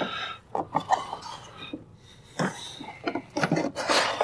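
Plastic detergent dispenser drawer of a Whirlpool front-loading washer being pulled out and worked loose: a string of clicks and knocks of hard plastic, with a scraping rush near the end.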